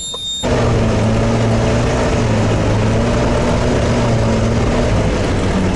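All-terrain vehicle's engine running at a steady pace while driving, a loud, even drone that holds its pitch. It starts abruptly about half a second in.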